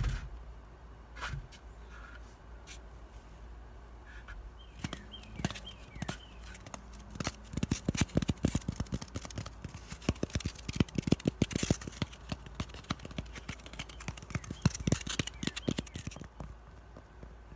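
Fingers tapping and scratching rapidly on floral foam: a dense run of small sharp clicks from about seven seconds in until near the end, with a few scattered taps before it.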